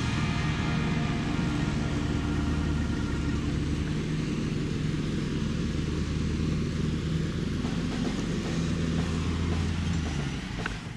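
Lawn mower's small gasoline engine running steadily, freshly brought back to running after repair; the sound drops away near the end.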